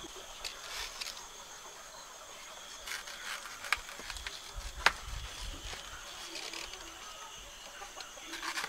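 Insects chirping steadily in the background, with scattered light clicks and handling noises. A sharp click comes just before four seconds in and a louder knock near five seconds, with a short rustle at the end.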